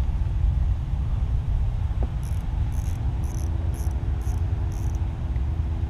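Wind rumbling on the microphone, with an insect chirping about twice a second, six short chirps in the middle, and a faint steady low hum joining about two seconds in.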